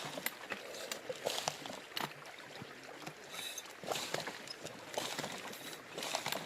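Water splashing and sloshing with irregular knocks and clatters, as of gear and stones being handled in shallow river water.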